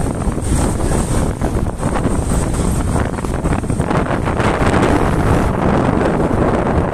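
Loud, steady wind rushing over the microphone of a moving motorcycle, mixed with the bike's running and road noise.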